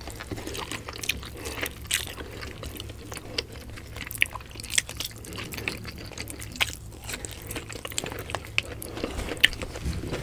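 Close-miked eating: chewing and crunching of raw leafy greens and grilled fish with rice, with many irregular sharp mouth clicks and crunches.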